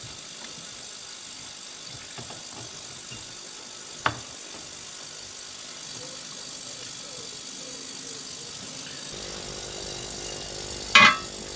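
Hand tools at work on an engine: a single sharp knock about four seconds in, then a low hum sets in and loud metallic clatter follows near the end.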